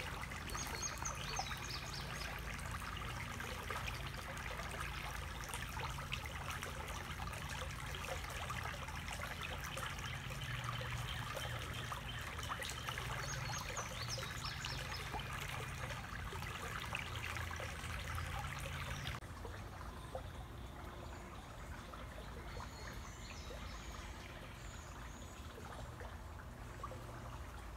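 Shallow creek water trickling and babbling over stones in a riffle. About two-thirds through, the water sound drops suddenly to a quieter background. A few faint bird chirps sound in between.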